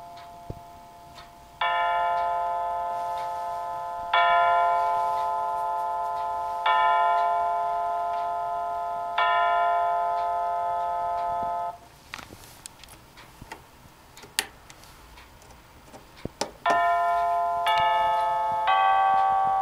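Adler wall clock's battery-powered chime playing through its small speaker. Four identical bell-like strikes ring about two and a half seconds apart and cut off abruptly about halfway through. A few soft clicks follow, then chime notes of changing pitch start about a second apart near the end.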